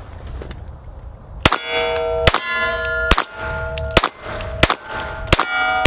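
Glock 44 .22 LR pistol firing seven shots in steady succession at steel plate targets, starting about a second and a half in. Each hit leaves the plate ringing with a long bell-like tone.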